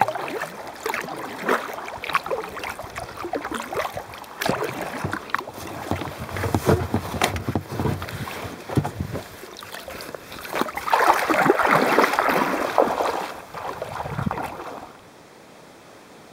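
Water splashing and lapping against a sea kayak's hull as it is paddled through shallow water, with a louder stretch of rushing water noise about eleven seconds in. Near the end it changes suddenly to a steady faint hiss.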